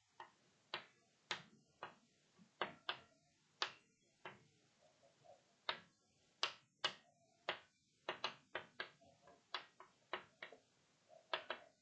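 Chalk on a blackboard while words are written by hand: a faint, irregular string of short, sharp taps and clicks, about two a second.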